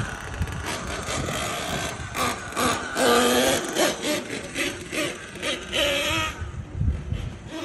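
Nitro RC truck's .28 two-stroke glow engine revving up and down in bursts of throttle as the truck drives, with the loudest burst about three seconds in.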